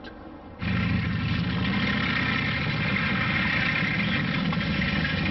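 Tank engines idling: a steady, heavy engine rumble that starts about half a second in and holds level.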